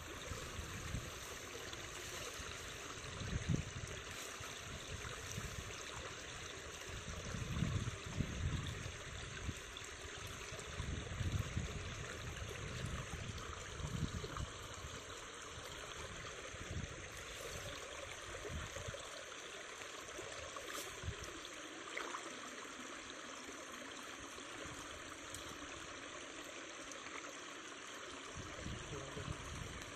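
Steady trickle of water running through a shallow channel between flooded rice paddies. Irregular low rumbles, like wind on the microphone, come and go during the first half.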